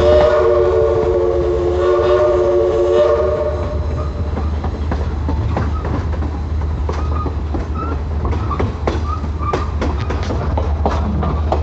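Southern Railway Mikado #4501's steam whistle blowing one long multi-note chord that cuts off about four seconds in, then the passenger cars' wheels rumbling and clicking over the rail joints.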